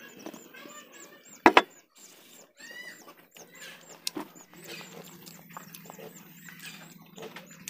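Knife chopping through food on a banana leaf over a wooden table: one sharp, loud knock about a second and a half in and a lighter one near four seconds, with soft handling sounds between. A rapid, high chirping goes on in the background.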